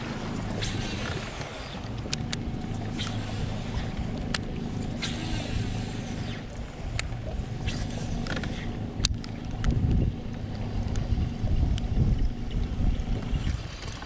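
Heavy rain pouring onto the river and the boat: an even hiss with many scattered sharp taps of drops, over a steady low hum from the boat. A few low rumbles swell up about ten and twelve seconds in.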